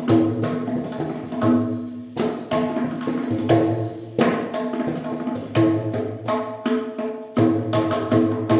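Mridangam played solo in a fast run of hand strokes: ringing, pitched strokes mixed with deep bass strokes, with two short breaks in the rhythm.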